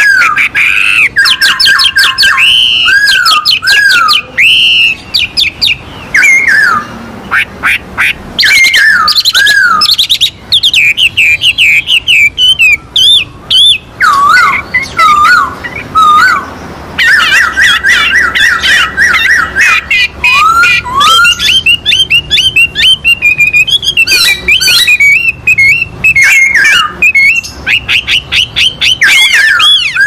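Chinese hwamei and black-throated laughingthrush singing: a near-continuous run of loud, varied whistled phrases, with rising and falling slurs and fast runs of repeated notes.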